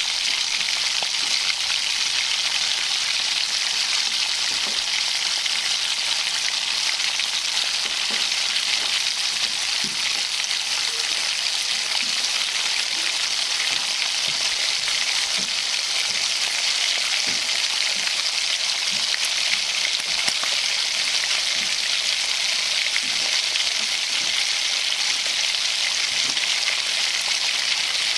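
Steady sizzling hiss of polao rice cooking in an aluminium pot on the stove, with faint scattered ticks as a spatula stirs it.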